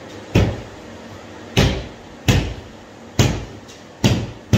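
Hammer blows on green plasterboard wall lining being fixed to the framing: six sharp strikes at an uneven pace of about one a second, each ringing briefly.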